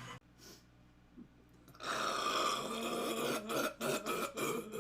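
A long, drawn-out burp starting about two seconds in and lasting about a second and a half, followed by a few short, sharp mouth or throat sounds.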